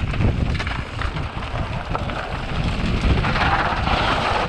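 Wind buffeting a helmet-mounted action camera as a mountain bike rolls down a loose, rocky dirt trail, with tyres crunching on gravel and the bike rattling over the stones. From about three seconds in a harsher gravel hiss rises as the bike brakes to a stop.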